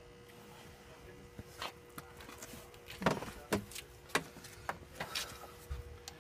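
A string of sharp clicks and clunks, about nine over four seconds, the loudest about three seconds in, from an air hose with a brass fitting being handled and coupled up to push compressed air into an engine cylinder. A faint steady hum runs underneath.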